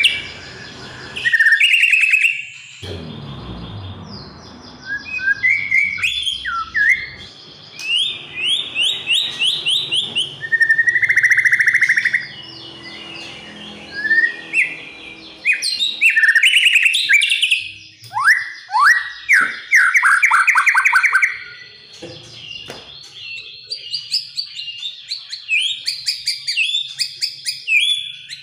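White-rumped shama singing a loud, varied song: phrases of rapid repeated notes, sweeping whistles and trills, broken by short pauses.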